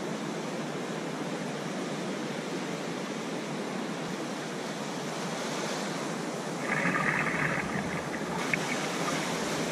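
Ocean surf breaking and washing up a sandy beach, a steady rush of waves that swells briefly louder about seven seconds in.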